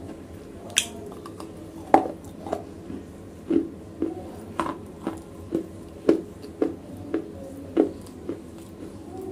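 Wet black slate clay crunching and squishing close to the microphone, in sharp clicks about twice a second.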